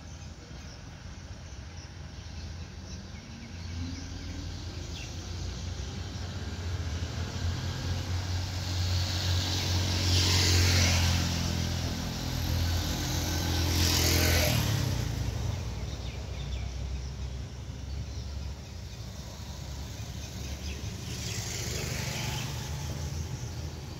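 Motor vehicles driving past: a low engine drone that swells into two loud passes about ten and fourteen seconds in, and a fainter one near the end.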